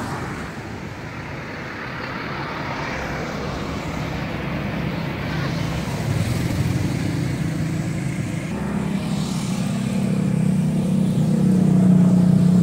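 A motor vehicle engine running, a continuous rumble that settles into a steady low hum and grows louder over the last few seconds.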